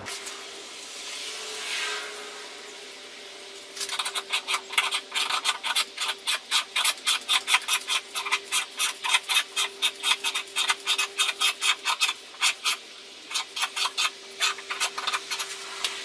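Scissor jack being cranked by hand with its rod handle to lift a car. After some rustling, a regular run of sharp clicks, about four a second, comes from the turning crank and screw, with a short pause near the end.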